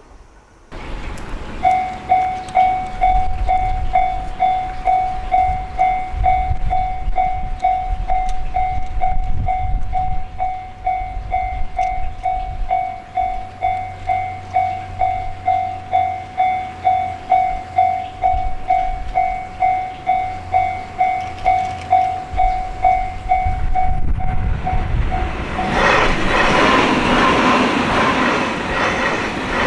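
Japanese railroad crossing warning bell ringing in a steady kan-kan rhythm, about two strikes a second. Near the end the bell stops and a train passes with a loud rushing rumble.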